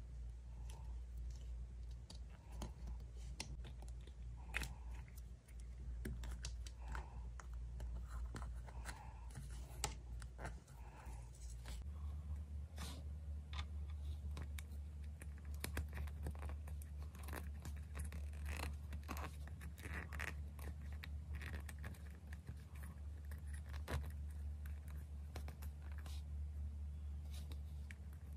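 A small plastic toy unicorn figure and its tiny accessories being handled with long acrylic fingernails: irregular light clicks, taps and scrapes of nails on plastic. A steady low hum runs underneath.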